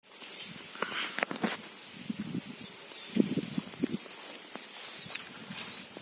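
Insects trilling steadily in the cornfield, a high pulsing chirr that never stops. Over it come irregular rustles and soft steps through the grass and corn leaves, strongest about a second in and again around three seconds in.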